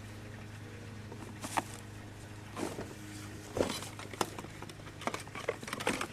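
Scattered knocks, clatters and rattles of junk being handled and moved, over a steady low hum.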